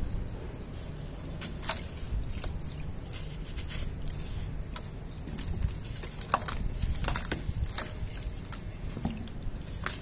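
Clumps of wet sand crumbled and squeezed by hand, with scattered crackles and soft splashes as the sand drops into water, over a low steady rumble.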